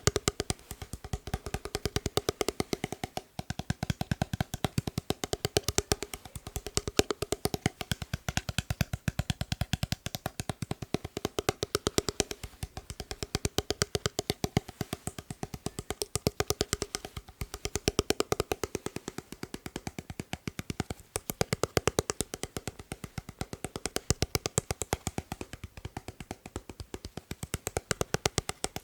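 Quick, even tapping on a hard object, many taps a second, in runs of about two seconds that swell and ease. Some runs carry a hollow, wood-block-like ring.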